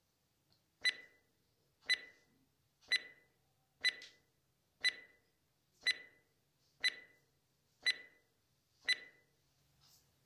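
Countdown timer sound effect: nine short beeps, one each second.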